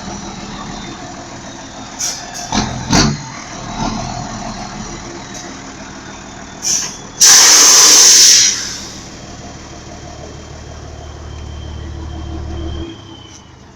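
Volkswagen 31.320 truck with a straight-through exhaust idling with a steady low rumble. About seven seconds in, a loud hiss of air lasts about a second and a half. Near the end the engine rumble stops abruptly.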